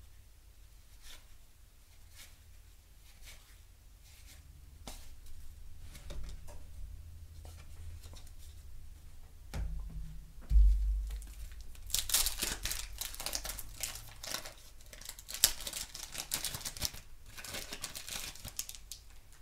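Baseball cards handled and flicked through, then a thump about halfway. After it a 1991 Topps wax-paper pack wrapper crinkling and tearing open for several seconds, with more crinkling near the end.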